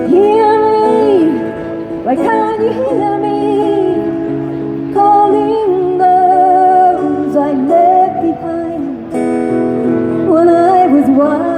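A woman singing long held notes with a slight waver over acoustic guitar accompaniment.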